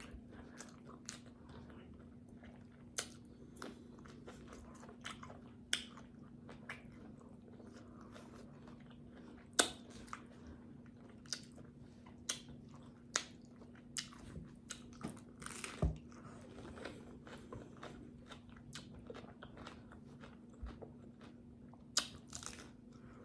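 Close-miked eating of tacos: irregular bites, crunches and wet chewing and smacking clicks about a second apart, over a faint steady hum.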